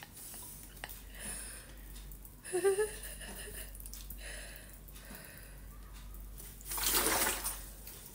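Water poured from a large plastic gallon bottle into a rice cooker's inner pot of red rice, with a louder splashing pour about seven seconds in.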